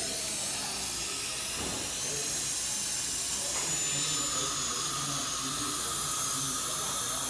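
High-speed dental drill running steadily with a hissing water spray while drilling a tooth for a filling. Its thin high whine steps up and down in pitch a few times.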